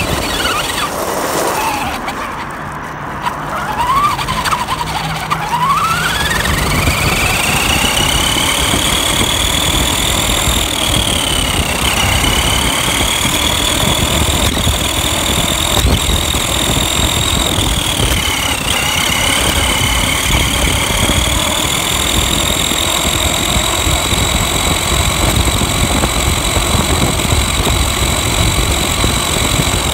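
Electric RC car running at speed: a high motor and gear whine that drops low a couple of seconds in, climbs back over several seconds, then holds high with two brief dips. Under it, a steady rumble of tyres and chassis rattle on rough pavement, picked up by the on-board phone.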